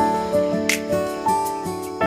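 Background music: soft plucked guitar-like notes with a light tapping beat about once a second.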